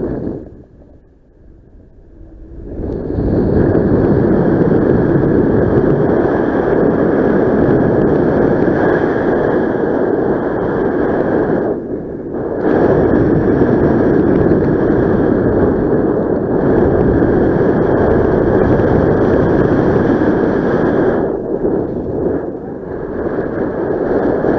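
Strong wind rushing and buffeting over the camera microphone during a paraglider flight, starting with a short thump. The wind builds up after about two and a half seconds and eases briefly around the middle and again near the end.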